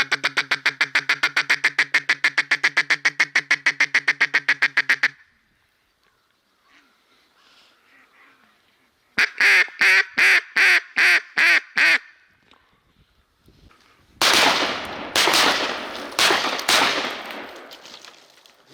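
Mallard-style quacking, most likely a hunter's duck call: a rapid, even chatter of about eight notes a second for five seconds, then about seven loud separate quacks a few seconds later. Near the end come several bursts of rough noise.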